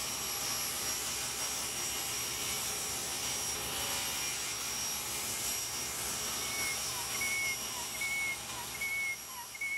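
Steady rushing, whooshing machine noise. From about two-thirds of the way in, a run of short high squeaks repeats about every two-thirds of a second.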